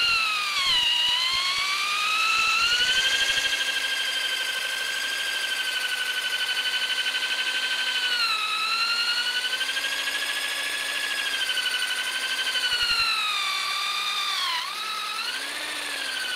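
Electric drill spinning an aluminum bicycle seatpost while 220-grit sandpaper is pressed against it: a loud, steady motor whine that sags in pitch and recovers several times as the sanding pressure changes, over the hiss of the paper on the metal.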